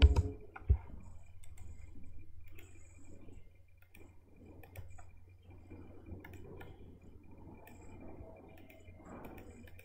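Scattered faint clicks of a computer mouse and keyboard, with a sharper click about a second in, over a steady low electrical hum.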